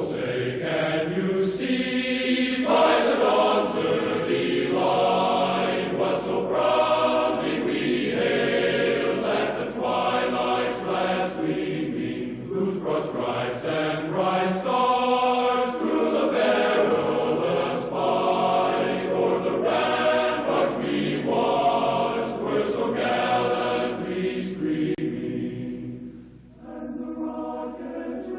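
Choral music: a choir singing long held chords that change every second or two, with a short drop in loudness near the end.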